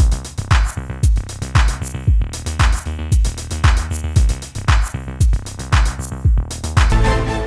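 Electronic background music with a steady drum-machine beat and sustained synth notes.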